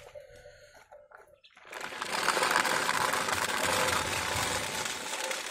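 Plastic toy tractor and trailer being pushed over rough concrete, the hard plastic wheels rolling with a dense, steady rattle that starts a little under two seconds in.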